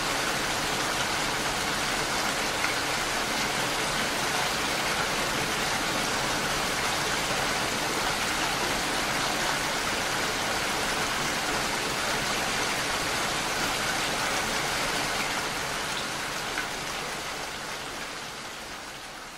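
Steady rain falling, an even dense hiss that fades out near the end.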